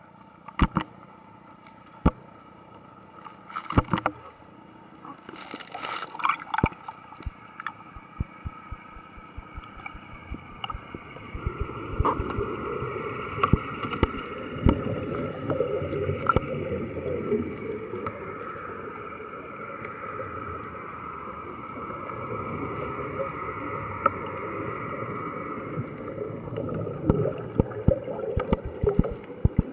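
Heard underwater around sub scooters: bubbling and gurgling with scattered sharp clicks and knocks. A little before the middle a louder steady drone with a thin whine sets in, easing off near the end.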